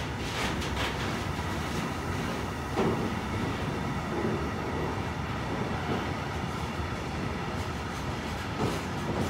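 Container wagons of a freight train rolling past: a steady rumble of steel wheels on rail, with a few clacks as wheelsets cross rail joints.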